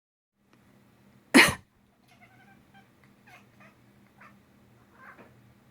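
A person coughs once, sharply, about a second and a half in, and a domestic cat answers with a string of six or seven short, faint chirps.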